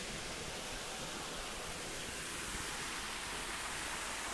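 Steady, even hiss of background noise with no pitched sound in it.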